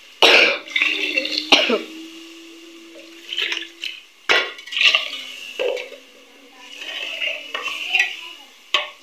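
A steel spoon clinking and scraping against a steel cooking pot as frying masala is stirred, with a few sharp knocks.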